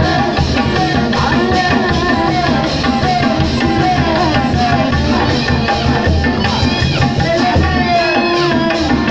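Loud Sundanese procession music: drums and percussion keeping a steady beat under a high, wavering melody that slides between notes, climbing higher about two-thirds of the way through.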